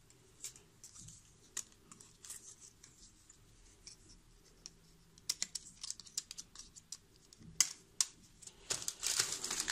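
Light handling noise: scattered small clicks, taps and scratches of a plastic LED-strip reel and a USB cable being turned and coiled in the hands, getting busier toward the end.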